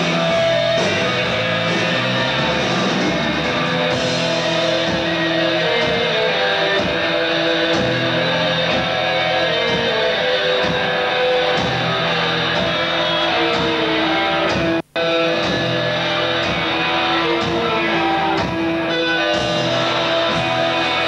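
Live rock band playing an instrumental passage, electric guitar over drums. The sound drops out for an instant about fifteen seconds in.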